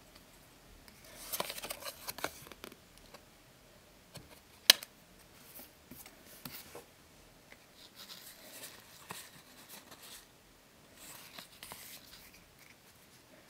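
Pokémon trading cards being handled: papery rustling as the cards come out of the opened booster pack, one sharp tap about a third of the way in, then soft intermittent sliding as the cards are slipped one behind another.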